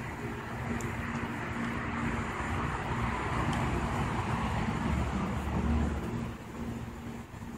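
A passing car: a rushing tyre and engine noise that builds over a few seconds, peaks, and falls away about six seconds in, over a steady low hum.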